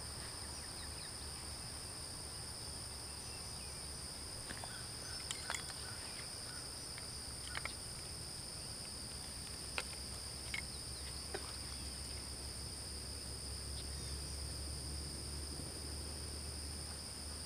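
Steady high-pitched chorus of insects in a grass field, two constant shrill drones, over a low steady rumble, with a few faint clicks scattered through.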